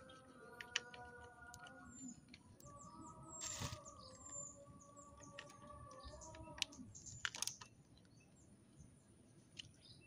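Scattered light clicks and taps of a hand tool, a screwdriver with a socket extension, working the bolts of a Honda motorcycle engine's side cover. Birds chirp faintly in the background with short high chirps.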